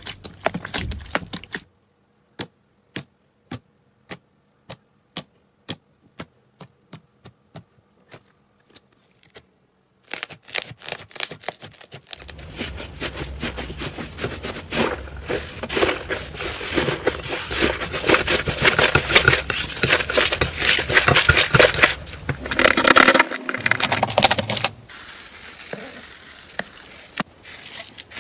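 Slime being pressed and worked by hand, making sharp clicks and crackles: a dense run at first, then single pops about twice a second that fade away, then a long stretch of dense, loud crackling.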